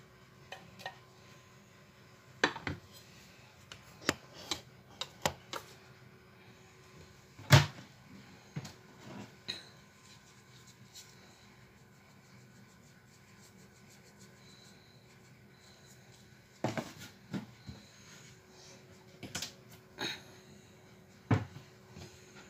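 Scattered light knocks and clinks of a ceramic plate, spoon and spice jar being handled on a kitchen counter, in two clusters with a quiet stretch between them; the loudest knock comes about seven and a half seconds in. A faint steady hum sits underneath.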